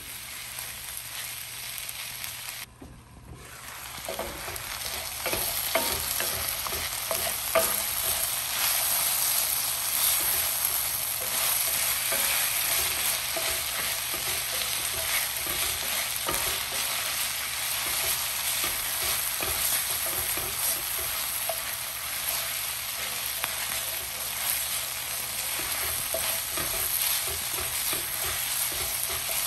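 Shredded cabbage with onion and tomato frying in oil, sizzling steadily while a wooden spoon stirs and scrapes it around the pan, with small clicks of the spoon. The sizzle drops away briefly about three seconds in, then comes back louder and holds.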